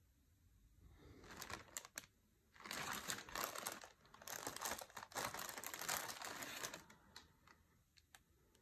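Clear plastic bag crinkling in bursts for several seconds as it is handled and opened, followed by a few light clicks.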